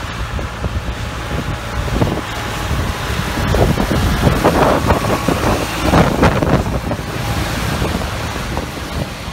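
Solis 50 hp tractor's diesel engine running as it drives past towing a Kane 20-tonne WBX halfpipe dump trailer, with tyre noise on the wet road and wind on the microphone. It grows louder as it passes, about four to six seconds in, then fades.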